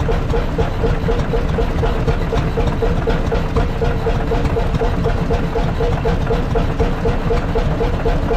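Danish-built Hundested two-stroke hot bulb engine, 60 hp, running steadily at slow speed with an even beat of about five strokes a second.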